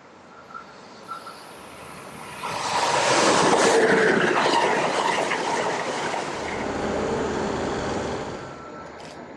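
Train passing through the station at speed: a rush of wheel and air noise that swells suddenly about two and a half seconds in, holds for several seconds and then fades away near the end.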